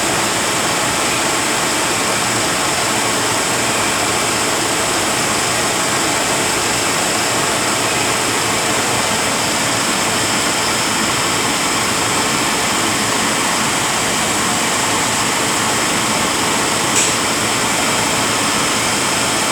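Rebuilt Eaton Fuller RTLO-18913A truck transmission spinning on a test dyno: a loud, steady whirring rush with a faint high whine, and one sharp tick near the end.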